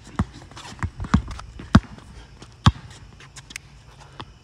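Basketball dribbled on an outdoor asphalt court: a handful of sharp, unevenly spaced bounces, the last loud one a little under three seconds in.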